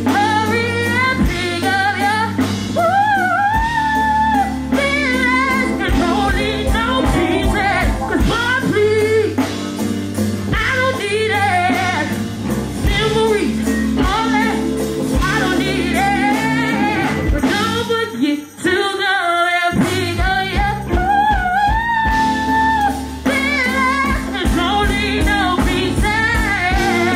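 A live band playing with a lead singer over steady bass notes; the bass drops out for about a second past the middle.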